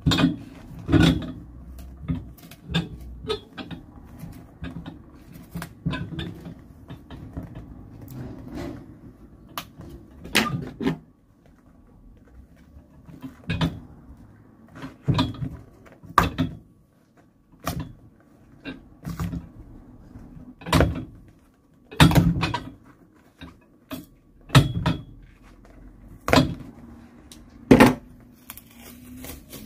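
A knife cutting through a shoe's old welt stitches and the sole being pried and pulled off the welt with pincers: irregular sharp snaps and clicks, some loud, as stitches give and the sole comes away.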